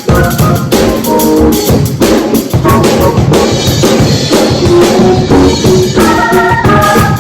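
Music with a drum kit playing a steady beat over bass and chords, with held keyboard chords coming in near the end.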